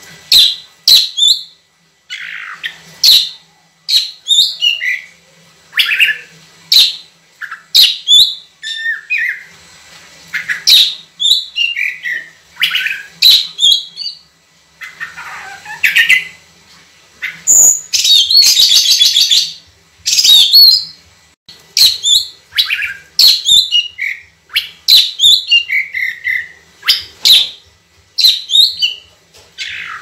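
Oriental magpie-robin (kacer) singing loudly and without pause: a run of clear whistled phrases, many sliding down in pitch, with a harsh buzzy stretch of about two seconds a little past the middle.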